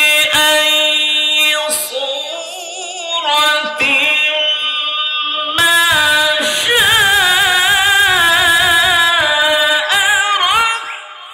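A male qari chanting Quran recitation (tilawat) in a melodic style into a microphone, with long held, wavering notes. A softer phrase comes first, then a long, loud phrase from about halfway that falls away near the end.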